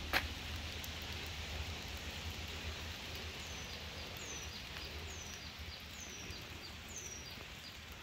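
Steady rain falling on the bush, with one sharp tap just after the start. From about halfway in, a bird calls five times, each a short high note falling in pitch, a little under a second apart.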